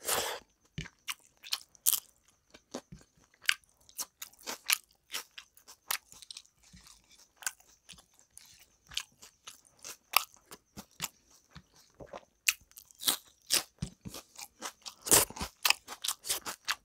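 A person chewing mouthfuls of rice and chicken curry eaten by hand, with many short, sharp mouth clicks at an irregular pace, loudest about 15 seconds in.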